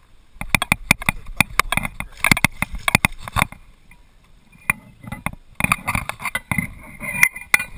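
Kayak paddle strokes: the blade splashing in the river with a rapid clatter of sharp knocks and clicks, in two busy stretches with a short lull in the middle.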